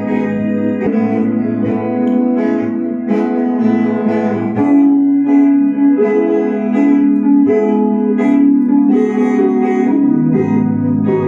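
Guitar music: plucked notes over a held low bass that drops out for a few seconds in the middle.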